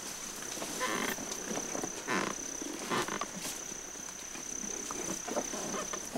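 Tall dry grass rustling and swishing against a riding elephant and its riders as it pushes through, in irregular brushes with stronger swishes about one and two seconds in.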